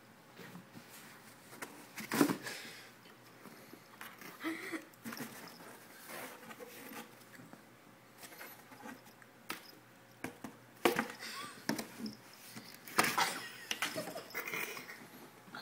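Kittens scrabbling and bumping inside a cardboard pet carrier: irregular scratches and knocks of claws and paws on cardboard, with quiet gaps between them and the loudest knocks about two seconds in and again near the end.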